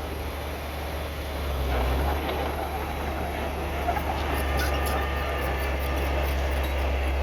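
Heavy diesel earthmoving machinery running steadily under load, with a deep low hum throughout. There are a few sharp metallic clicks about four to five seconds in.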